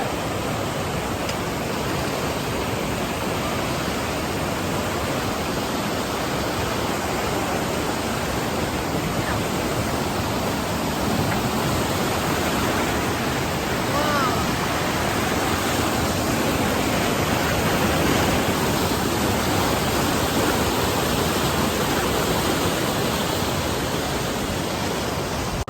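A steady, even rushing noise, swelling slightly past the middle, with a faint short chirp about fourteen seconds in.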